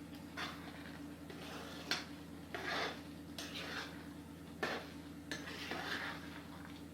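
A spoon stirring thick chana masala gravy in a pan, with repeated scraping strokes and a few sharp clinks of metal against the pan.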